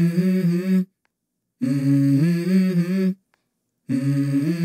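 Wordless hummed vocal phrases opening a song: one phrase ends just under a second in, another runs from about one and a half to three seconds, and a third starts near the end, with silent gaps between them and a slight waver in the pitch.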